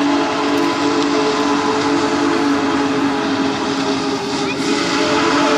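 Union Pacific Big Boy steam locomotive's chime whistle blowing one long, steady blast, a chord of several notes over a hiss of steam.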